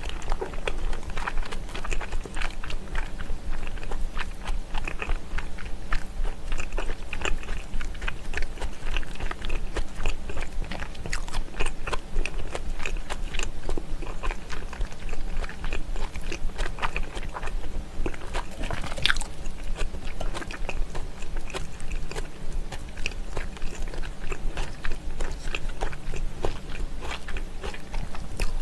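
Close-miked mouth sounds of a person biting and chewing smoked salmon: many quick, wet clicks. One sharper sound about two-thirds of the way through.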